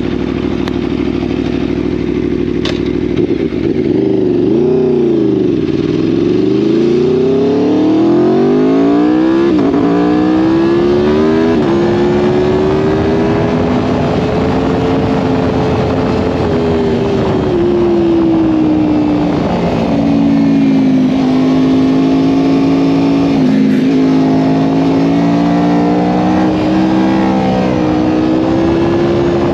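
Aprilia Tuono V4 1100 Factory's V4 engine idling, then the bike pulls away and revs up through the gears, the pitch dropping at each upshift about ten and twelve seconds in. It then runs at a steady road speed, the pitch rising and falling gently with the throttle. A single click comes about three seconds in.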